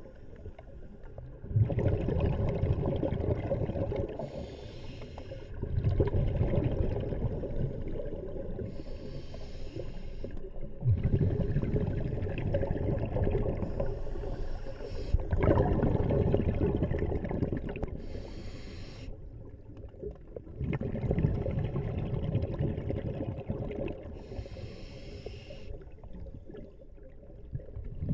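Scuba diver breathing through a regulator underwater: a short hiss on each inhale, then a longer bubbling rush on each exhale, repeating about every four to five seconds.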